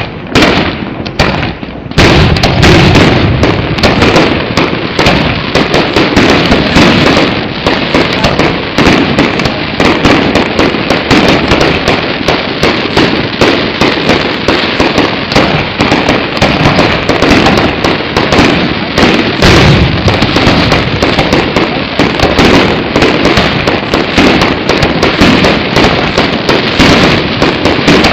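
Aerial fireworks display: a few separate bangs, then from about two seconds in a dense, continuous barrage of overlapping booms and crackle.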